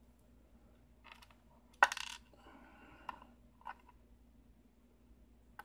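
Small metal lock pins and a pick-type tool clicking against a Euro cylinder while it is being gutted: a few light clicks, and one sharp metallic click with a short ring about two seconds in.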